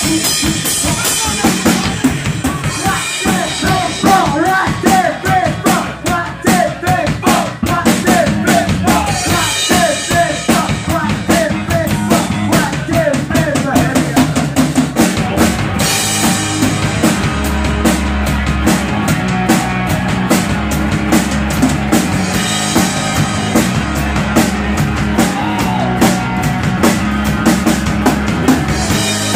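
A small rock band playing live: a drum kit with bass drum, snare and cymbals keeps a steady beat under bass and bending melodic lines.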